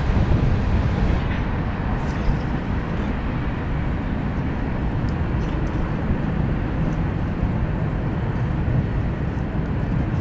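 Strong wind buffeting the camera microphone, a steady low rumbling noise with a few faint ticks.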